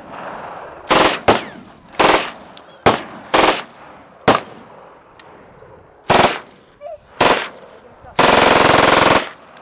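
MAC-10/M11-type submachine gun firing on full auto: a string of short bursts, each a fraction of a second, then a longer burst of about a second near the end.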